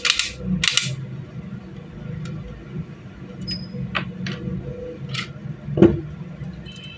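Metal pistol parts and tools being handled during barrel fitting: a series of sharp metallic clicks and knocks, the loudest about six seconds in, over a steady low hum.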